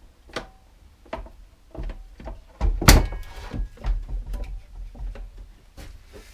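Clamps being handled and fitted onto a glued-up wooden box: scattered clicks and knocks. About three seconds in there is one loud knock, with a brief metallic ring.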